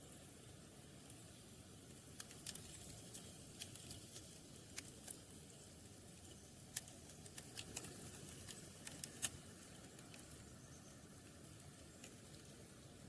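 Faint, irregular sharp ticks and clicks, coming in two clusters, one a couple of seconds in and one around the middle, over a quiet background hiss.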